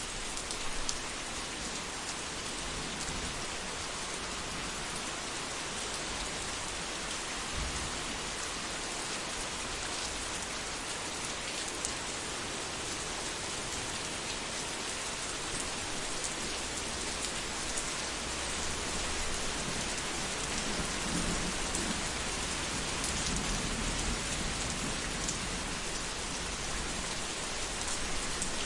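Steady rain hissing down in a thunderstorm, with a low rumble of thunder swelling in the second half and rolling on for several seconds.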